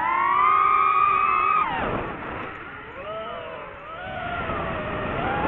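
DJI FPV drone's motors and propellers whining, the pitch rising and held high, then dropping steeply about two seconds in as the throttle is cut, and climbing again near the end as the throttle comes back up.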